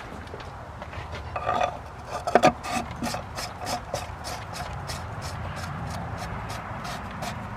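Plastic canister oil filter housing being fitted and screwed back in: plastic rubbing and scraping with a run of short clicks, a few a second, and a couple of louder knocks a little over two seconds in.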